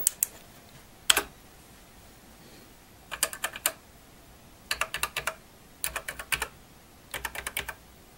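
A TRS-80 Model I keyboard being typed on: a couple of single key clicks in the first second or so, then four quick bursts of clicking as each key is pressed three times in a row. It is a test after cleaning the key contacts, and each press registers once, with no bouncing or double triggering.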